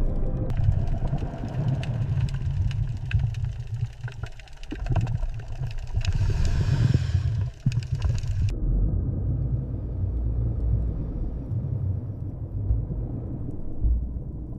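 A deep, steady low rumble with scattered clicks, and a hissing wash over it that cuts off suddenly about eight and a half seconds in, leaving only the rumble.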